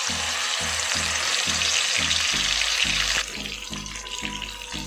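Marinated Bombay duck (lote fish) pieces sizzling as they are dropped into hot refined oil in a kadai. The sizzle is loud for about three seconds, then settles to a softer bubbling.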